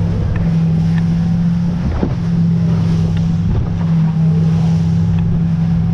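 Motorboat engine droning steadily at speed over open water, with wind buffeting the microphone and spray rushing off the bow as the hull cuts through choppy sea.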